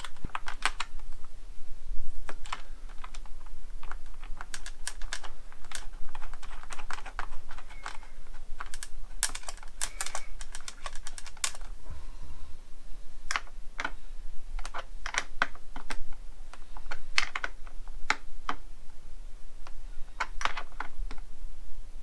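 Irregular light clicks and taps of small metal parts (washers, a nut, the indicator stud) against a plastic motorcycle fairing panel as an indicator is fitted by hand.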